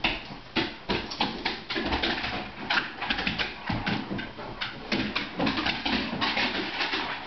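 Two dogs play-wrestling: a fast, irregular patter of scuffles, thumps and claws clicking on a hardwood floor as they tussle and run.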